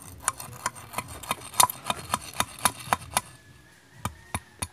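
Steel hook wire being worked with old locking pliers against a stone block: a run of sharp light metal clicks, about three a second, pausing around three seconds in and then starting again.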